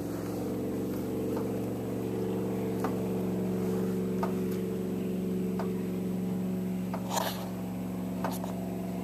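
Boat engine running steadily at low speed, a low, even hum, with light knocks every second or so.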